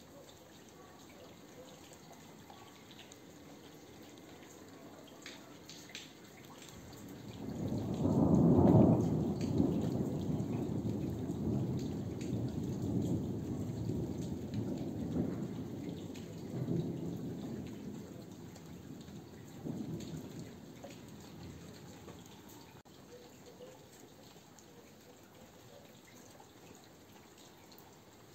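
Thunder: a low rumble builds about seven seconds in, is loudest a second or two later, and rolls on in several swells before dying away some fifteen seconds after it began. Light rain drips in the background.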